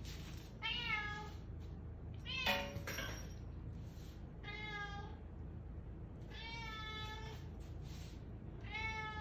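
Orange tabby cat meowing repeatedly: five separate meows about two seconds apart, the second one the loudest.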